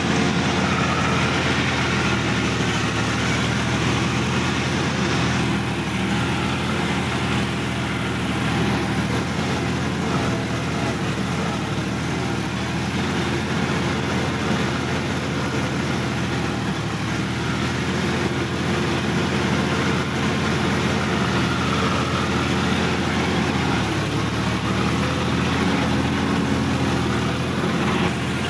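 Sonalika DI-50 RX tractor's diesel engine running steadily at an even speed while the tractor drives along, heard from the driver's seat.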